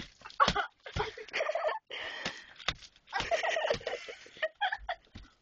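Dull thumps of a stuffed toy being hit against soft bedding, several times and the strongest about half a second in, mixed with shrill, cackling voice sounds.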